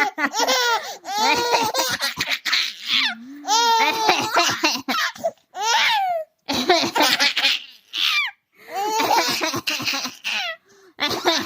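Baby laughing in repeated high-pitched bursts of giggles and belly laughs with short breaks between them, set off by her mother's fake coughing.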